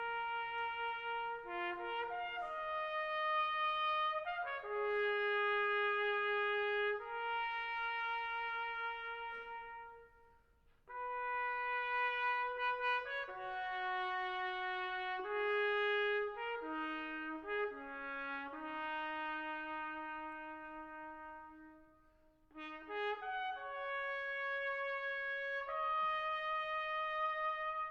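Solo trumpet playing a slow melody of long held notes, in three phrases with short breaks about ten and twenty-two seconds in.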